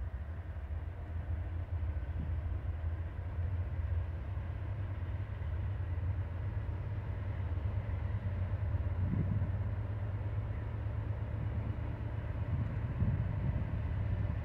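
Diesel locomotive engine rumbling in the distance, slowly growing louder as it approaches.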